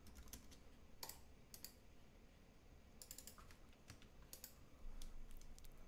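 Faint, scattered keystrokes on a computer keyboard, a few quick clicks at a time.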